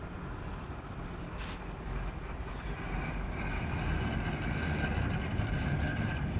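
Street traffic: a vehicle's rumble grows steadily louder as it approaches. There is a brief hiss about a second and a half in, and a faint high whine from about halfway.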